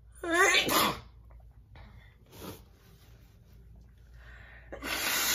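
A woman sneezing: a loud voiced sneeze in the first second, a short sniff-like burst around the middle, and a longer breathy burst near the end.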